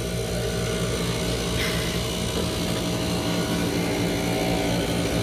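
A steady, low mechanical hum of a running motor.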